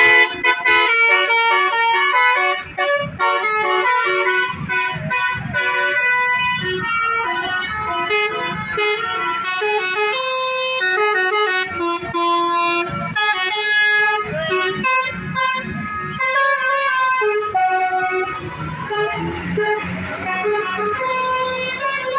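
Basuri telolet bus horns: multi-tone horns on buses playing quick melodic tunes, note after note, with several horns overlapping. The horn tones thin out after about 18 seconds, leaving a noisier rumble.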